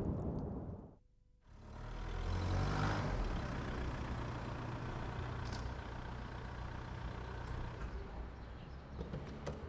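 A burning car's fire roars for about a second and cuts off in a brief gap. Then a car drives up, its engine swelling as it passes about three seconds in, and keeps running steadily as it pulls in and stops at the kerb.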